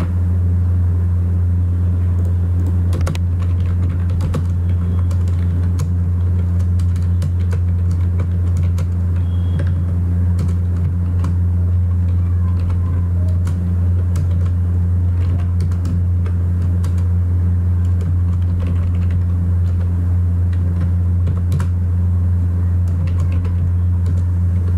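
Computer keyboard typing, scattered faint key clicks, over a loud steady low hum.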